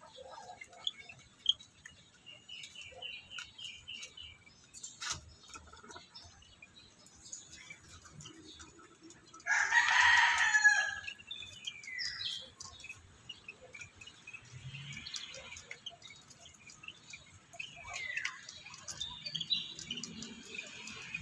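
A rooster crows once, loudly, about ten seconds in, the call lasting about a second and a half. Scattered short bird chirps and a few falling whistled calls come before and after.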